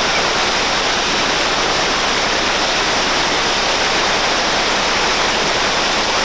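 Whitewater of the Reventazón River's Class 3 rapids rushing, a steady, loud wash of water noise.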